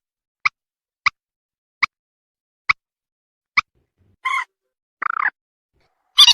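Recorded mandar (rail) lure call: five short, sharp clucking notes that come further apart each time, then two longer, harsher calls about four and five seconds in, and a loud call near the end.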